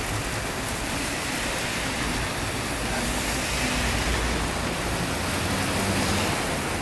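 Heavy rain pouring onto a street, with cars driving through the wet road. A low vehicle rumble grows louder in the middle.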